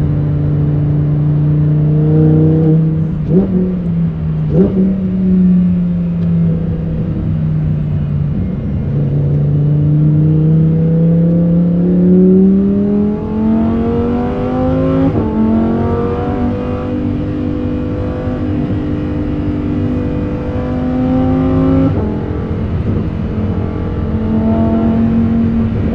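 Lamborghini Huracán Performante's naturally aspirated V10 on its stock exhaust, heard from inside the car, pulling through the gears. The revs climb steadily from about nine seconds in, and quick upshifts drop the pitch twice, around fifteen and twenty-two seconds in.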